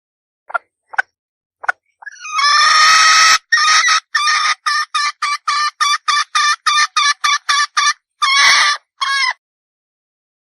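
Red junglefowl hen calling: three short clucks, then one long drawn call, then a rapid even run of clucks at about three a second, ending in a longer call and a final short note.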